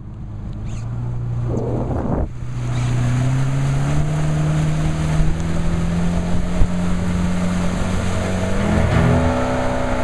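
Motorboat engine running up to speed, its pitch rising steadily over several seconds, over a steady rushing noise.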